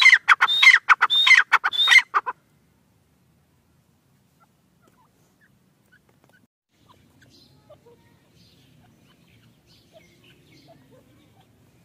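A francolin (teetar) calling: a rapid run of loud, shrill notes repeated in about four phrases over two seconds, then stopping suddenly. Faint chirps of small birds and a low rustle follow.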